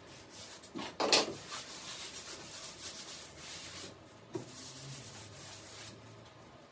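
Sped-up workbench handling sounds: a sharp knock about a second in, then scraping and rubbing, and another short knock a little past the middle.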